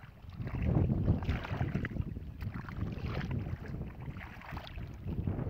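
Hands digging and splashing in shallow muddy water, in uneven bursts, with wind buffeting the microphone as a low rumble that swells about half a second in.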